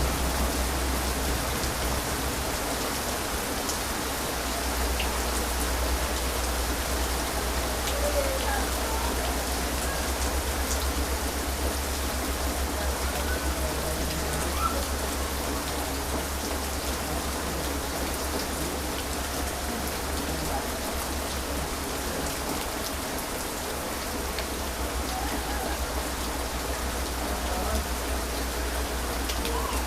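Heavy rain falling steadily, an even hiss of rain on surfaces with a low rumble underneath.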